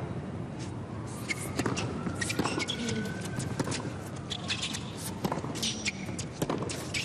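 A tennis rally on court: a string of sharp hits and clicks of ball and footwork, several a second. Under it a siren wails slowly up and then back down in pitch.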